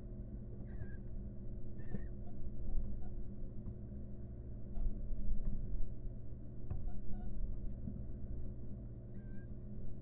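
Pair of barn owls in a wooden nest box giving short, high calls: one about a second in, another around two seconds, and a third near the end. Faint ticks and a steady low hum sit underneath.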